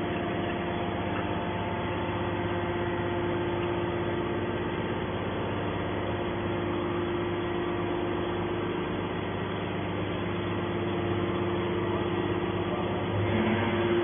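Hydraulic power unit of a TCM scrap metal baling press running steadily, a hum with a steady whine, as the ram pushes a finished compressed scrap bale out of the chamber. It grows a little louder with a lower tone about a second before the end.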